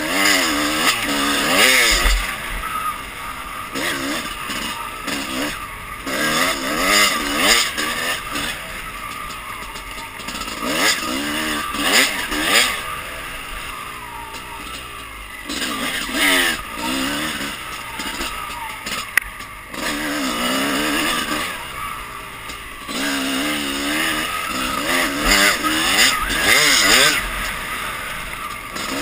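Dirt bike engine revving up and down over and over as it is ridden along a trail, its pitch climbing then dropping back through the gears. A noisy rush sits under it throughout.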